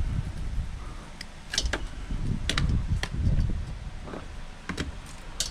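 Hands handling scrap wire and small metal connectors: a scatter of sharp clicks and clinks, several close together in the middle, over a steady low rumble.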